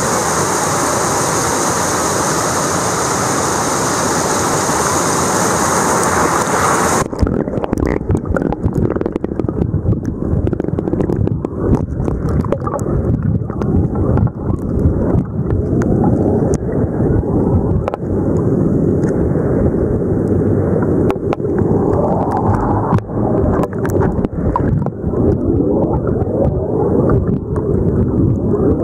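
Shallow river riffle rushing over a pebble bed, heard first above the water as a steady hiss. About seven seconds in it abruptly turns muffled and low as it is heard from underwater, with a dense crackle of clicks from bubbles in the current.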